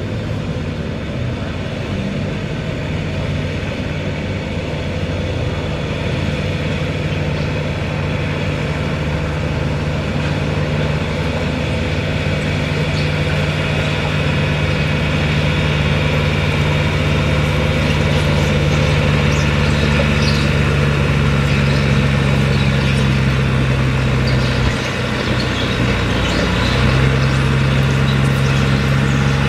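John Deere utility tractor's diesel engine working steadily under load while pulling a weight-transfer sled, growing louder as it nears. About five seconds before the end the engine note dips briefly and settles at a slightly lower pitch.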